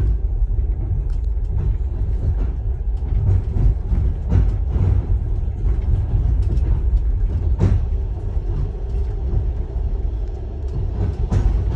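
Passenger train running, heard from inside a sleeper carriage: a steady low rumble with scattered knocks and rattles.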